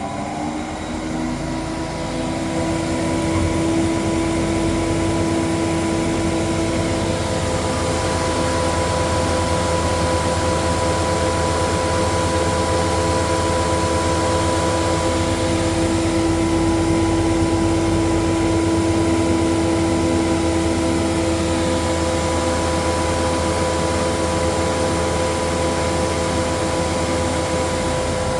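Panhans Typ 335 A woodworking planer running steadily at full speed, its motor and cutter block giving a constant whine of several steady tones over a dense rushing noise.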